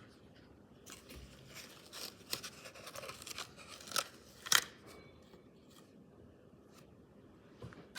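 Packaging of a die-cast toy car being opened by hand: a run of crackles and clicks, with two sharp snaps about halfway through, then a few quieter seconds.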